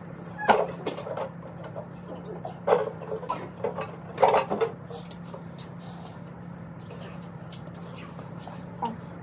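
Clicks and knocks of plastic engine-bay parts being unclipped and handled as the air intake duct is worked loose and lifted off, in three short bursts within the first five seconds, over a steady low hum.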